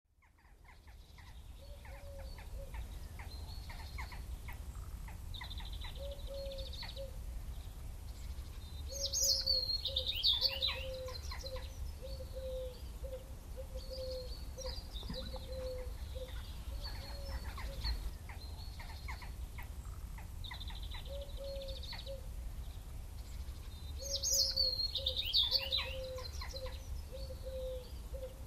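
Birdsong ambience: several birds calling over a steady low rumble, fading in over the first two seconds. A run of short, low repeated notes and a burst of loud, high chirping recur about every 15 seconds, like a looped recording.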